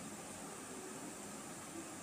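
Faint steady hiss with no distinct sounds in it: the recording's background noise.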